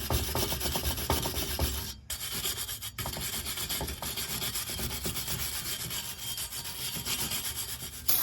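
A wire brush scrubbing the face of a car's rear wheel hub with rapid back-and-forth strokes, about four to five a second, briefly stopping twice about two and three seconds in.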